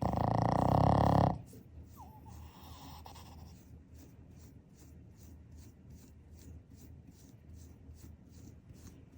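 Boston terrier snoring: one loud buzzing snore for the first second and a half, then a fainter nasal snuffle. Throughout, a hand strokes its fur with a soft, even brushing rhythm, about two to three strokes a second.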